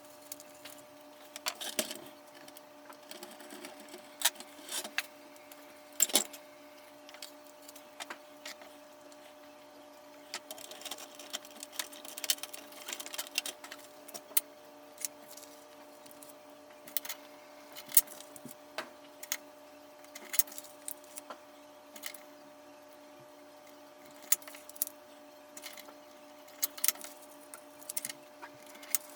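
Scattered sharp clicks and taps of hard plastic toy parts being handled and fitted, over a steady electrical hum.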